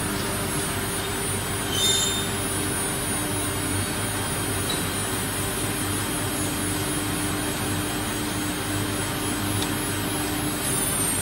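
Woodworking CNC router running, its spindle giving a steady high whine over steady machine noise, with a brief metallic clink about two seconds in. Near the end the high whine falls in pitch as the spindle changes speed.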